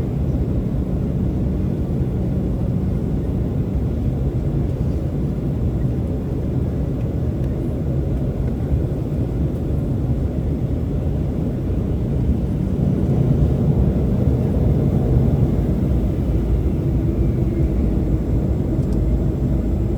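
Steady low rumble inside an Embraer 195's cabin: its GE CF34-10E turbofan engines running at idle, with cabin air noise. It grows slightly louder about two-thirds of the way through.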